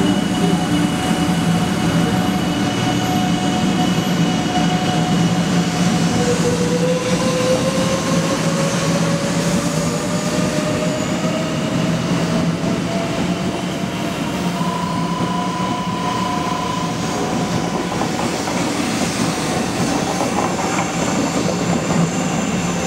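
JR West 500 Series shinkansen pulling away from the platform and accelerating past: a steady, loud rumble of wheels and running gear, with a whine that rises slowly in pitch from about six seconds in as the train picks up speed.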